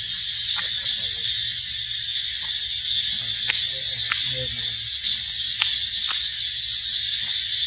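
Steady high-pitched insect chorus with a fine pulsing texture, with several sharp clicks from about halfway through and a faint low animal grunt near the middle.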